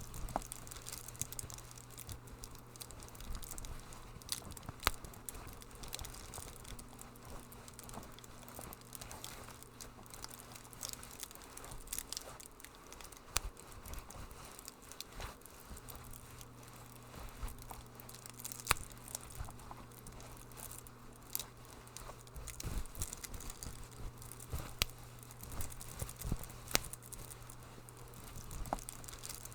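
Fireplace wood fire crackling: irregular sharp pops and snaps over a soft hiss, with a low steady hum underneath.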